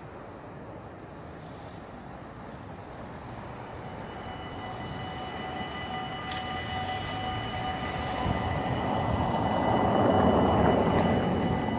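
A vehicle approaching and passing: a rushing noise that grows steadily louder to a peak about ten seconds in, with a steady high whine of several tones setting in partway through.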